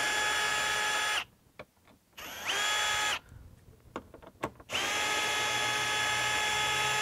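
Hilti cordless drill driver spinning out the screws holding a piece of wheel-well trim: a steady whine in three runs, about a second at first, a short spin-up about two and a half seconds in, and a longer run from about five seconds in, with a few small clicks in the gaps.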